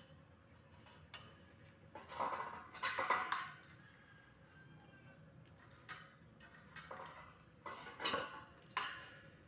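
A pencil scratching along a metal combination square on galvanized square tubing as a cut line is marked, in two short spells of scraping about two and eight seconds in, with light clicks of the square against the tube.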